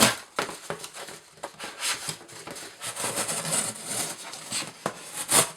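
Emerson Mini Commander knife blade slicing through corrugated cardboard: a series of rasping, crackling cuts with a few sharp clicks.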